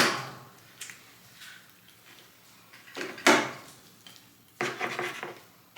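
Kitchen knife cutting a whole chicken in half down the breastbone. There is a sharp knock at the start, then crunching cuts through the bone about three seconds in and again near the end.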